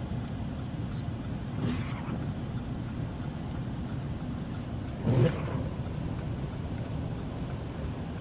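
Steady low rumble of a vehicle's engine and tyres heard from inside the cab while driving slowly on a snowy highway, with a brief louder sound about five seconds in.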